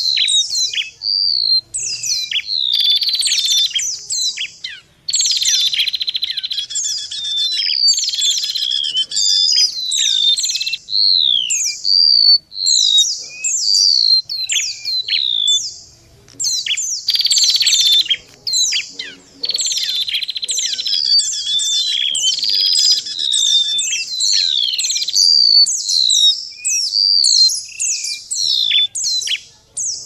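Bird-lure recording of golden-bellied gerygone and white-eye calls layered with another small songbird: a dense, unbroken run of high, falling and sliding whistles, with bursts of buzzy chattering between them.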